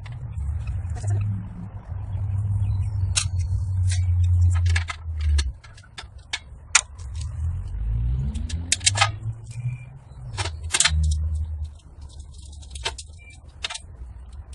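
Sharp metallic clicks and clinks of small screws, nuts and galvanized steel panels being handled and fitted together, over a low rumble that fades out about five seconds in and returns later.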